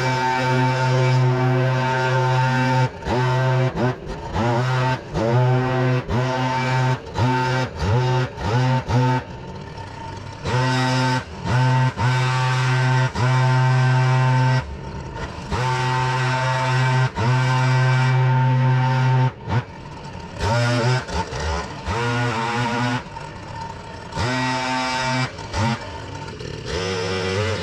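Engine of a leaf vacuum running hard with a steady drone. Its speed repeatedly drops for a moment and climbs back up, dozens of times.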